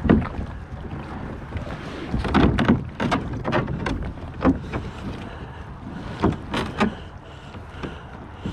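Kayak hull scraping and grinding over a sandy, gravelly bank as the seated paddler pushes off by hand, in a run of irregular scrapes and knocks.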